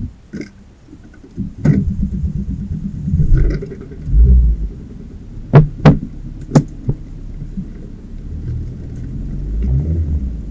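Car engine running with a low rumble that sets in about a second and a half in, swelling briefly near four seconds. Three sharp knocks come close together a little past the middle.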